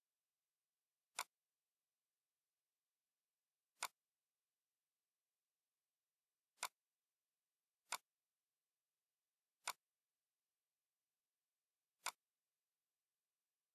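Six single computer mouse clicks, sharp and irregularly spaced a second or more apart.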